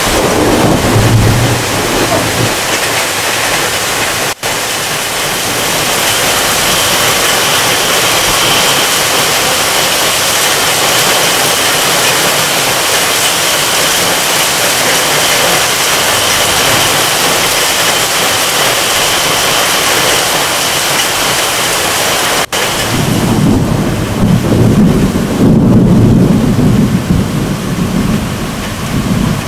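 Heavy downpour hissing steadily onto trees during a summer thunderstorm. About three quarters of the way in, a long, loud rumble of thunder rolls in under the rain. The sound breaks off for an instant twice.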